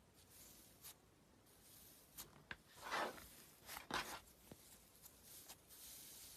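Slime being handled, quiet: scattered soft clicks and pops, with two louder squishes about three and four seconds in.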